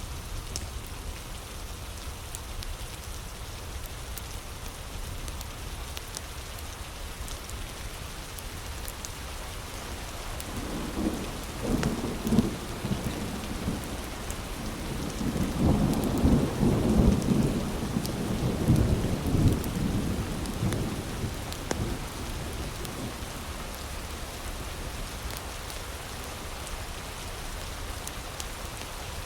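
Heavy rain falling steadily, with a long roll of thunder that builds from about ten seconds in, is loudest a few seconds later, and fades away by about twenty-two seconds.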